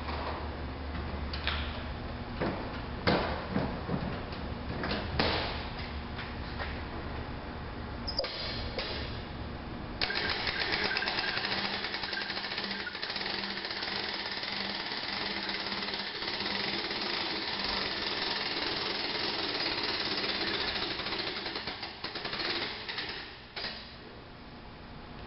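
Knocks and clunks of a snowblower being handled on a truck tailgate lift platform, then from about ten seconds in a dense, rapid clicking rattle for about twelve seconds as the mechanical Catan tailgate lift lowers the platform to the floor.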